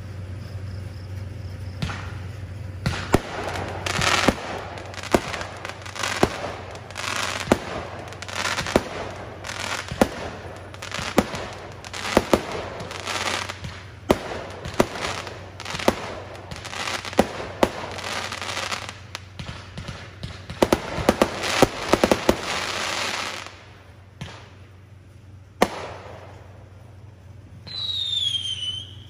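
Aerial fireworks going off in quick succession: sharp bangs about one or two a second, with crackling between them, for some twenty seconds. After a lull there is a single bang, and near the end a whistle falling in pitch.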